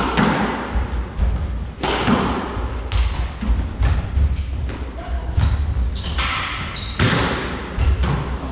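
Squash rally: the ball cracking off racquets and the walls about once a second, with short high squeaks of court shoes and footfalls on the hardwood floor between shots.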